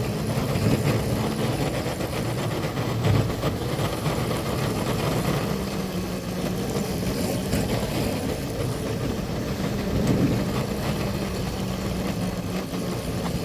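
Two locomotives running steadily under heavy load, pushing a plow through deep snow, with a steady engine drone and a low hum under it.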